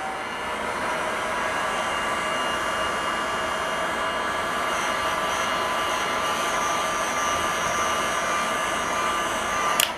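Hot-air heat gun blowing steadily with a fan whine, reheating a PCB that has cooled so the solder flows onto the SMA connector. It stops with a click near the end.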